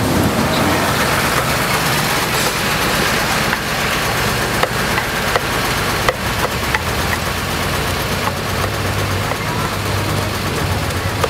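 Steady background noise of a busy street market, with an engine-like low hum and a few scattered faint knocks.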